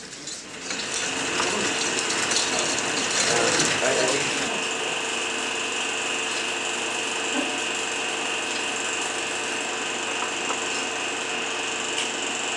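Film projector running: a steady mechanical whirr with a constant high whine, more uneven for the first four seconds or so and then even.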